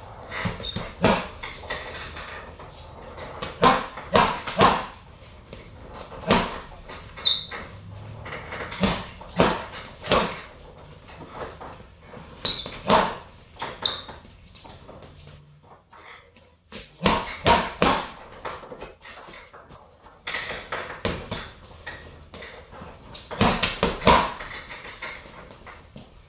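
Boxing gloves striking an Everlast heavy bag in quick combinations of two to five punches, with short pauses between combinations, along with brief high squeaks.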